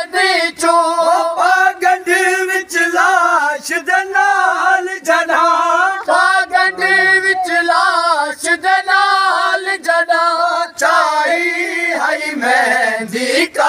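Men chanting a Punjabi Shia noha (Muharram lament) together, unaccompanied, the sung lines rising and falling, with sharp strikes here and there between the lines.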